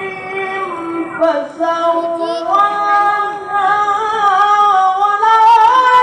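A male qari's high, drawn-out melodic Qur'an recitation (tilawah): one long phrase sung on a single breath, the pitch stepping up about two and a half seconds in and the voice growing louder toward the end.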